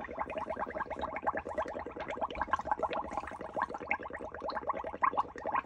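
A straw blown into a tray of ink, water and washing-up liquid, bubbling in a rapid, steady stream of small pops and gurgles. It starts suddenly and cuts off sharply just before the end, one long blow of about five and a half seconds.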